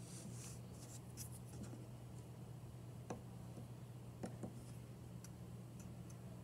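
Needle tool scratching scores into the edges of clay slabs: faint short scrapes, mostly in the first second and a half, then three light ticks between about three and four and a half seconds in.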